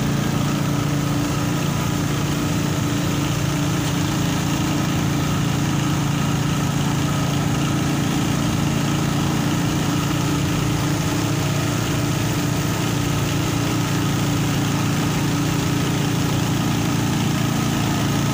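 Heavy engine idling with a deep, even hum that holds steady throughout, while fresh water is pumped from a tanker truck into a ship.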